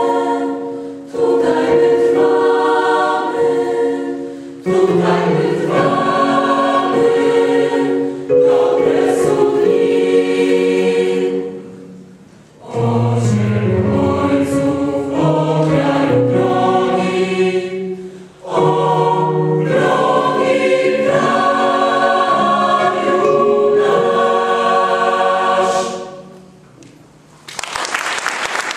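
Mixed youth choir singing in several phrases, with short pauses for breath between them. The song ends a couple of seconds before the end, and audience applause breaks out right after.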